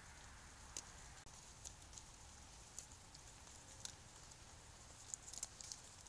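A moose grazing right at the camera: about eight sharp, irregularly spaced crunching clicks as it bites and chews vegetation, over faint hiss. The loudest clicks come near the end.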